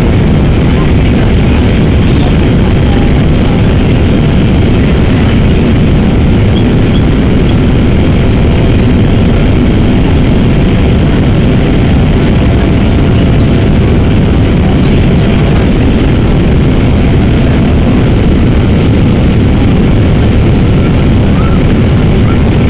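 Steady, loud cabin noise of a Boeing 787-8 Dreamliner climbing out after takeoff: its jet engines and rushing air, heard from a window seat beside the engine.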